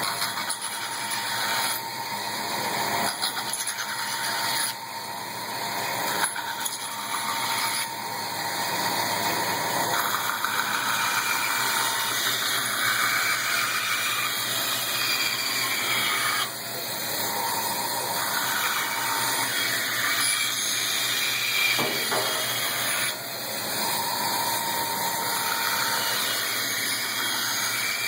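Powermatic Model 81 vertical band saw running, its blade cutting wood. The sound is steady but shifts abruptly in tone and loudness several times as the cut goes on.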